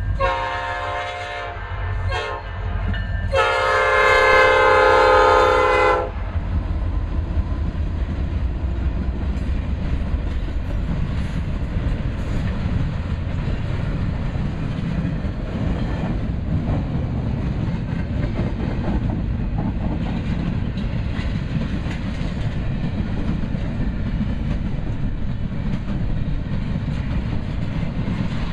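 Locomotive air horn on a Norfolk Southern stack train sounding a long blast, a brief one and a longer, louder one over the first six seconds. Then comes the steady rumble and clickety-clack of the double-stack container cars rolling past.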